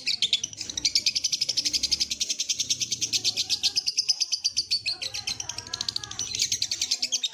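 Lovebird giving a long, unbroken 'ngekek' chatter: very rapid high chirps, more than ten a second, running without a pause.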